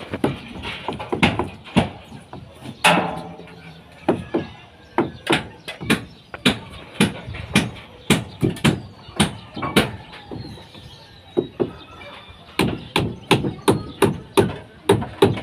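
Repeated hammer blows on wooden slab formwork: sharp knocks, about two a second. They pause briefly around ten seconds in, then come in a faster run near the end.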